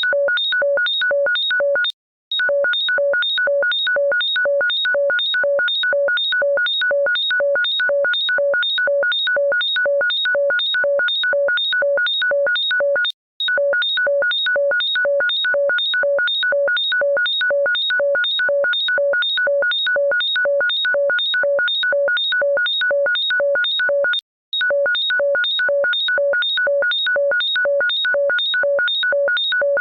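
Electronic ringtone of rapid beeps, about three a second, each beep several steady tones sounding together. It stops briefly about every eleven seconds as the loop starts over.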